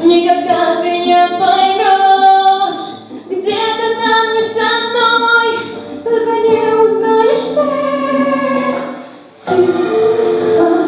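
A choir of mostly female voices singing held, sustained notes in long phrases, with short breaks between phrases about three seconds and about nine seconds in.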